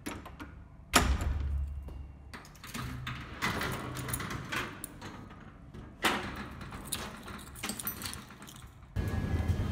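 A door being unlocked and opened: a lever handle and latch clunk, keys jangle, and a key turns in the lock of a metal security gate, giving a string of clicks and knocks. The loudest clunk comes about a second in.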